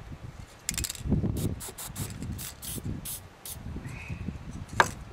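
Aerosol spray can squirted in several short bursts of hiss at an outboard carburetor, followed near the end by one sharp metallic click.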